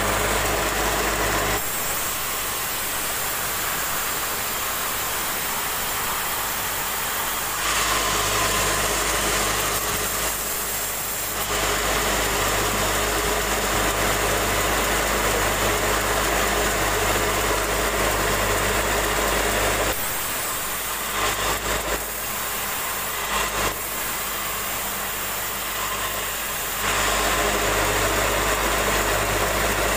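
Sawmill vertical band saw running and cutting a log: a steady machine drone with a low hum. Its tone shifts abruptly several times, and the low hum drops out and returns.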